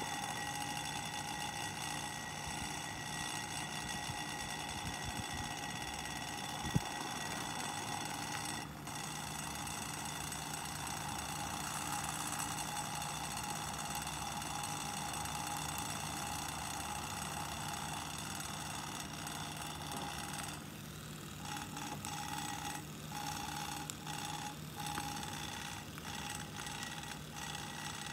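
Antique Sears, Roebuck Coldwave electric desk fan running: a steady motor hum with a whining high tone, which the owner calls a little noise and puts down to the motor needing fiber washers. One sharp click about seven seconds in, and in the last several seconds the whine drops out and returns again and again as the fan is moved by hand.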